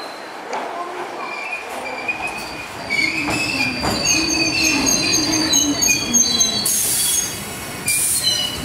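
Iyotetsu 700 series electric train pulling slowly into the platform, its wheels squealing in several high, wavering tones on the curved track over a low rumble that begins about two seconds in. Two short bursts of hiss come near the end.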